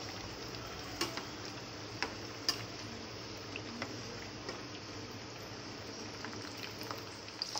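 Breadcrumb-coated pizza rolls deep-frying in oil over a medium-low flame: a steady bubbling sizzle. A few light clicks come as the metal slotted spoon touches the pan, about one, two and two and a half seconds in.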